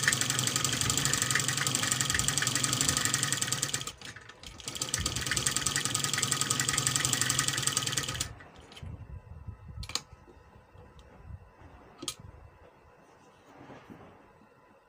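Sewing machine stitching a collar band along its tape, running fast and steady in two spells with a brief stop about four seconds in. It stops about eight seconds in, followed by a couple of sharp clicks.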